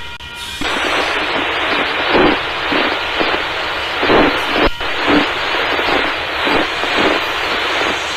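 Union Pacific freight train's boxcars and refrigerator cars rolling past close by: a steady rushing rumble of wheels on rail, swelling about once a second, through a webcam microphone.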